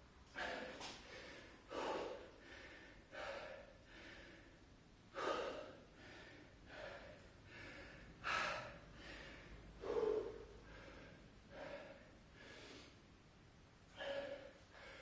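A man breathing hard and gasping for air, heavy uneven breaths about one every second, with a few louder gasps among them: out of breath from just finishing a set of 20 burpees.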